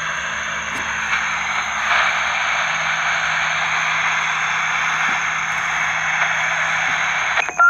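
CB radio receiver hissing static with the squelch open and no station coming in, steady, cutting off suddenly near the end.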